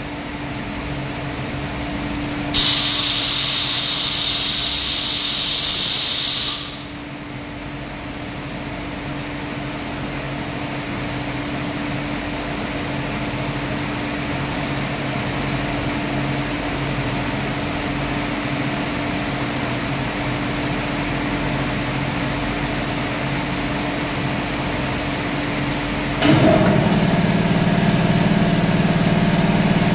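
Compressed-air blow gun hissing for about four seconds at a CNC vertical machining centre, then the machine's steady hum with a low tone. About 26 seconds in the machine starts running with a sudden, louder pitched hum.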